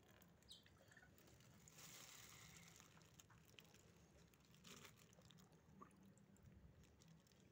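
Near silence, with faint drips and light splashes of water.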